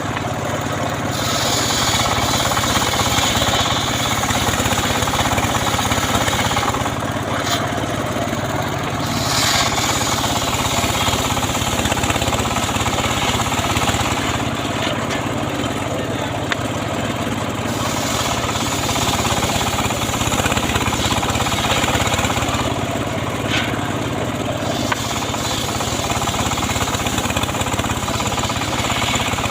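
Homemade engine-driven sawmill running and sawing sengon (albizia) wood: a steady engine hum under a rough cutting noise that swells and eases every few seconds.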